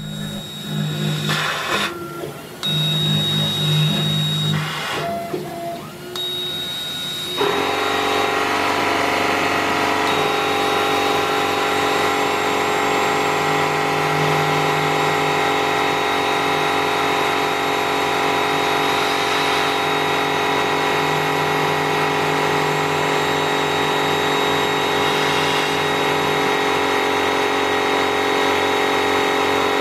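A K40 laser cutter at work gives intermittent mechanical whines and hums. About seven seconds in, a small 1-gallon Campbell Hausfeld air compressor feeding the air assist kicks in suddenly and runs steadily to the end, really loud.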